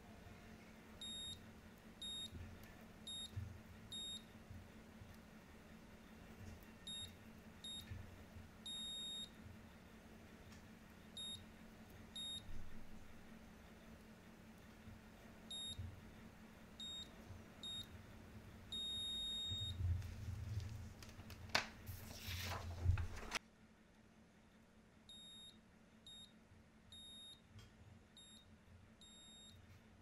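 Multimeter continuity tester giving high-pitched beeps, some short and some held for about half a second, in irregular clusters as the probes touch the traces of a keyboard membrane sheet. Each beep marks an unbroken trace. About two-thirds of the way through there is a louder scraping noise.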